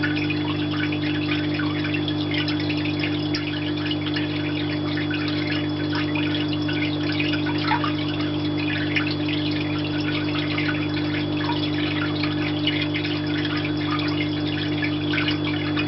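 Steady hum of a rain chamber's recirculating water pump, under the continuous irregular dripping and splashing of the artificial rain.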